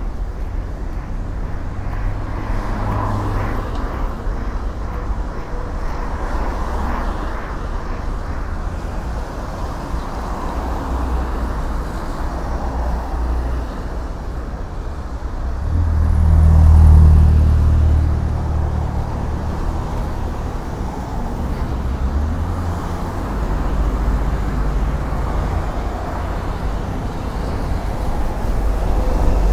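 Steady city road traffic: cars and buses running on an elevated road and the street below. One vehicle passes close about halfway through with a loud, deep rumble.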